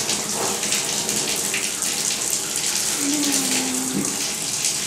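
Running water from a tap, splashing steadily into a stainless steel bathing tub and over a dog being washed.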